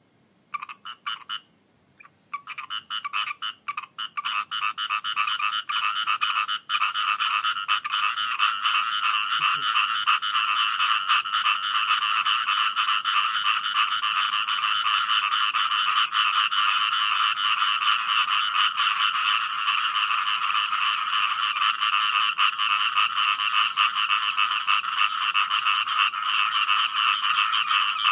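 Frog chorus: a few separate croaks at first, then from about two seconds in many frogs calling together in a dense, rapid, steady chorus.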